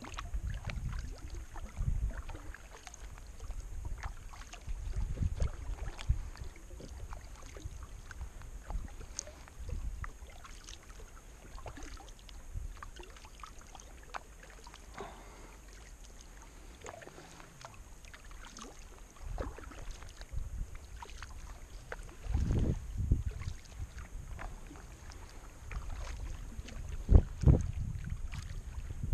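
Kayak being paddled: irregular paddle strokes and water splashing, with scattered small knocks.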